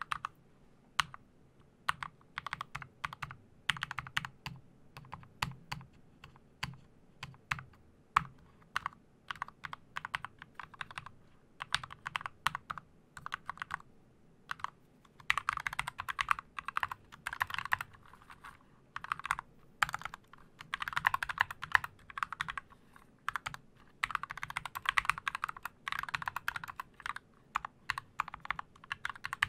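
Typing on a mechanical keyboard with linear switches, irregular keystrokes, short pauses between words, and quicker dense runs of clicking in the second half.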